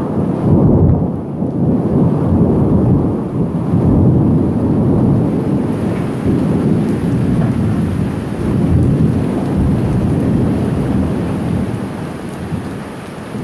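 Long rolling thunder rumbling on and off over steady rain, fading somewhat near the end.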